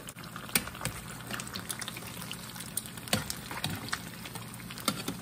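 Beer-battered tilapia fillets frying in hot oil in a skillet: a steady sizzle full of small crackles and pops, with a few louder clicks about three seconds in and near the end.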